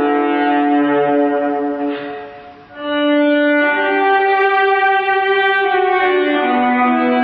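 Solo viola improvisation: long, sustained bowed notes that change pitch slowly. One phrase fades away about two seconds in, and a new phrase starts just before three seconds in.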